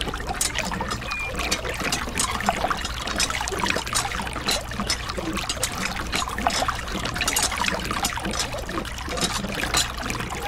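A thin stream of water pouring from a miniature hand pump's spout, splashing and trickling steadily into a shallow puddle on sand.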